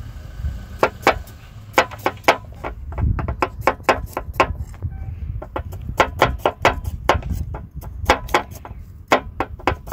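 Irregular sharp clicks and knocks close to the microphone, a few a second, over a steady low rumble.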